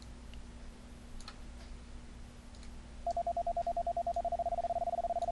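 Dahdidah software CW keyer sounding a Morse code sidetone, keyed from paddles at high speed. The tone starts about three seconds in as a fast, evenly spaced string of beeps, a test of how steady the keyer's rhythm holds.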